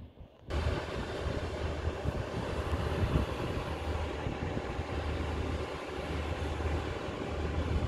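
Irish Rail 2600 Class diesel multiple unit running with its diesel engine, a steady hum under a wash of mechanical noise, which comes in suddenly about half a second in.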